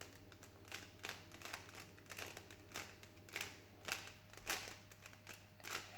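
Rubik's cube being turned by hand: a faint, quick series of plastic clicks, two or three a second, as the layers are twisted through a solving algorithm.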